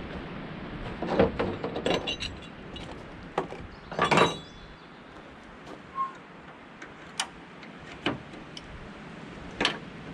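Scattered knocks and clinks from handling a pickup's tailgate and hinge hardware: a cluster of knocks about a second in, the loudest clank around four seconds in, then single clicks every second or so.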